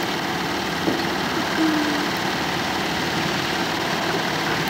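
Super 8 film equipment running: a steady motor whir with a fast, even rattle of the film transport.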